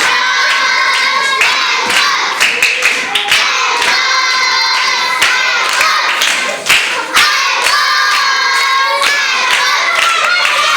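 A group of young girls singing or chanting together in unison, with hands clapping along.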